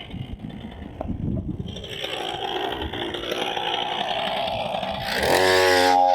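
Chinese two-stroke chainsaw engine driving a motorized bicycle, running and slowly rising in pitch and loudness as it speeds up, with low irregular thumps in the first couple of seconds. About five seconds in, it is cut off by a sudden burst, and music starts.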